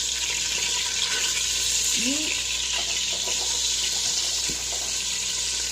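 Chunks of beef sizzling steadily as they brown in a hot pot.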